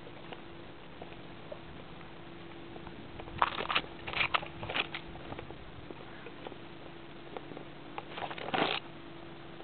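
Willow leaves and twigs rustling against the camera in a few short bursts about three seconds in, then one longer rustle near the end, over a faint steady hum.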